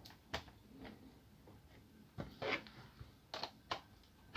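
An Asus K53SD laptop's optical drive being slid out of its bay: scattered sharp plastic clicks and short scrapes.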